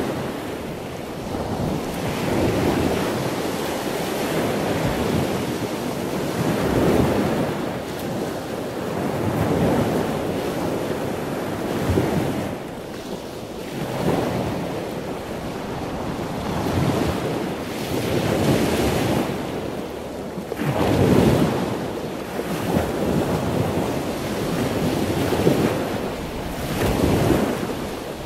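Ocean surf: waves washing in, swelling and falling away every two to three seconds.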